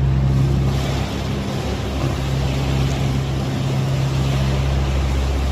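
A motor running steadily with a low, even hum, under a rushing hiss.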